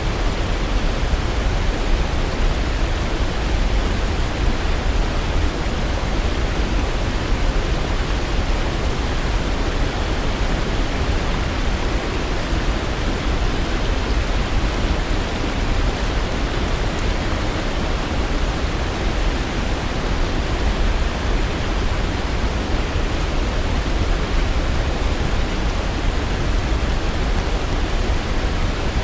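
Waterfall: a steady, even rush of falling water with no changes, heaviest in the deep low end.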